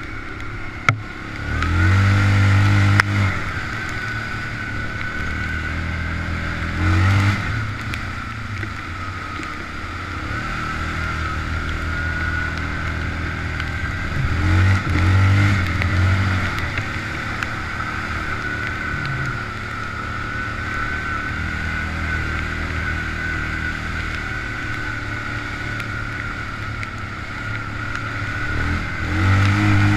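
Quad (ATV) engine heard from onboard while riding a muddy track, running steadily with throttle bursts that rise in pitch about two seconds in, around seven seconds, around fifteen seconds and again near the end. A steady high whine runs underneath, with a single sharp click about a second in.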